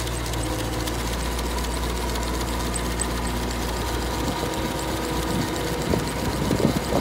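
Aquatic weed-harvesting boat at work: its engine and cutting and conveyor machinery run with a steady hum and a light, even mechanical clatter. A few irregular knocks come near the end.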